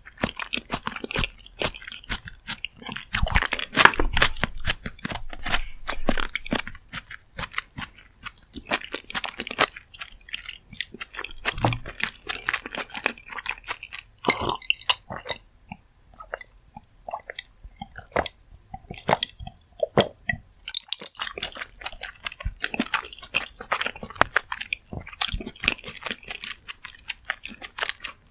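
Close-miked chewing of spicy rose jjimdak, Korean braised chicken with flat glass noodles: a dense, irregular run of wet chewing clicks and crunches, with a few brief lulls.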